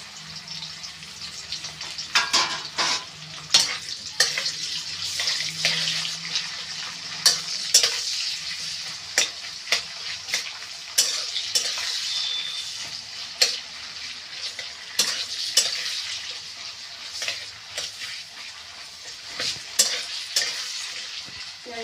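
Sliced onions sizzling in hot oil in a metal kadai, with a metal spatula scraping and clacking against the pan again and again as they are stirred.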